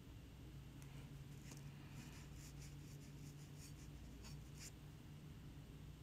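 Faint scratchy strokes of a small paintbrush applying glaze to the edge of an unglazed ceramic palette, a few short scrapes in the middle, over a low steady hum.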